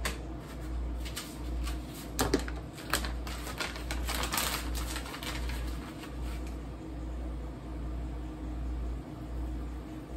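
Kitchen handling noises: a run of sharp clicks and crinkles in the first half as utensils and a plastic bag of shredded cheese are handled, over a steady low hum.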